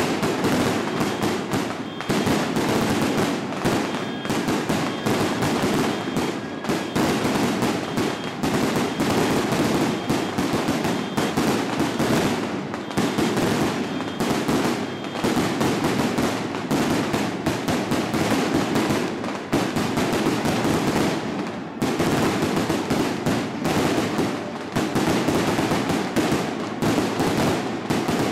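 Strings of firecrackers going off in a dense, unbroken crackle of rapid bangs, thinning briefly about two-thirds of the way through.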